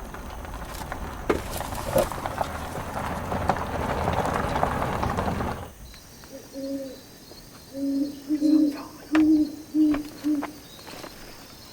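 A steady rushing noise with a few clicks cuts off about six seconds in. Then an owl gives a rhythmic series of about eight low hoots.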